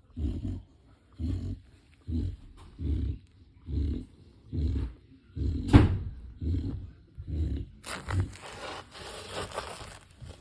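Dog snoring in quick, regular low snorts, a little more than one a second, with one louder snort about six seconds in. Near the end a hissing rustle lasts about two seconds over the snores.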